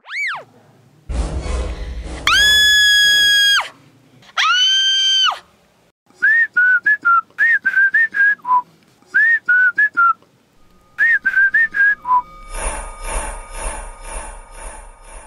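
Cartoon whistle sound effects. A quick falling whistle opens, then a whistle slides up and holds high over a low rumble, and a second arched whistle follows. Runs of short chirping whistle notes come after that, and a rattling buzz sets in near the end.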